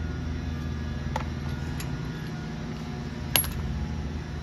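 A small metal object clinks once, sharply, a little past three seconds in, with a fainter tick about a second in, over a steady low hum.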